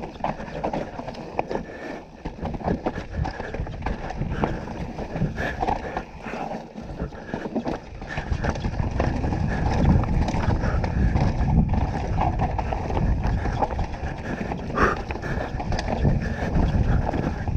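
2018 Canyon Torque CF9 Pro mountain bike riding a rough trail: tyres rolling over dirt and rocks with frequent knocks and rattles from the bike. Wind rumbles on the helmet-mounted camera, growing louder and heavier from about halfway through.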